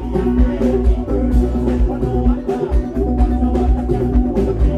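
Live band playing loud music on stage: drum kit beating a steady rhythm over heavy bass guitar and electric guitar.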